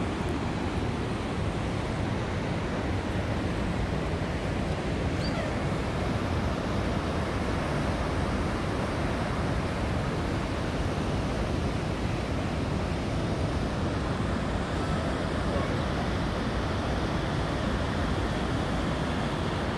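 Mountain stream rushing and cascading down a rocky gorge, a steady rush of water.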